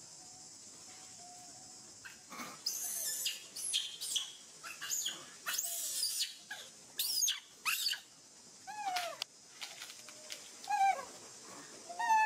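Young macaque screaming: shrill, high-pitched squeals for about six seconds, then several shorter calls that each fall in pitch near the end. These are the upset cries of a young monkey unhappy with another monkey.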